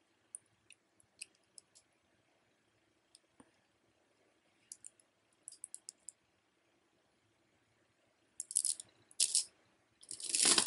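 Small clicks and ticks of a green bead necklace and its metal ball clasp being handled, the beads knocking together. Near the end come two louder bursts of rattling and rustling as the jewelry is moved on the table.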